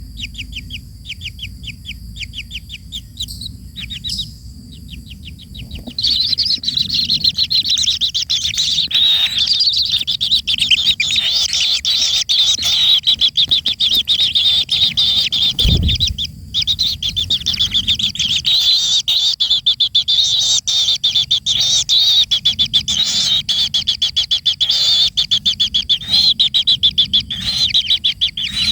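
Bird calls: a fast series of high chirps, about ten a second, then from about six seconds in a louder, dense, unbroken high chirping. A low thump comes a little past the middle.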